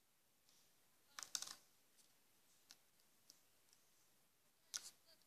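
Faint clicks and light rattles of hard plastic being handled: action figures and a clear plastic packaging piece. A short cluster of clicks comes about a second in, a few small ticks follow, and a sharper click comes near the end.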